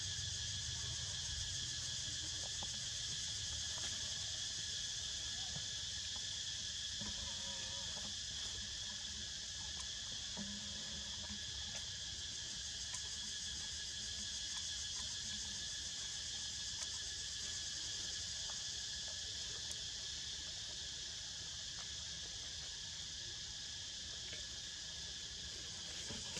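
A steady, high-pitched chorus of insects, with a faint low rumble underneath.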